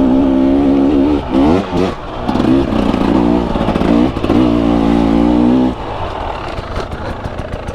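Dirt bike engine, most likely the KTM 300 EXC two-stroke, revving hard with the pitch rising and falling through throttle changes and breaks. About six seconds in the throttle shuts off abruptly and it drops to a quieter, steady run.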